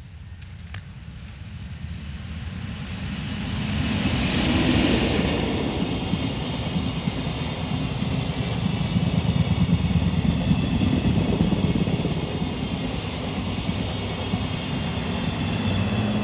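An ED79 electric locomotive and its long train of blue sleeper coaches passing close by, the wheels rumbling on the rails. The sound rises as the train nears and is loudest from about four seconds in while the coaches go by.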